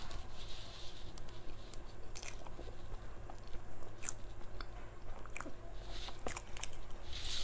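A person biting and chewing close to the microphone, with scattered crisp crunches and clicks.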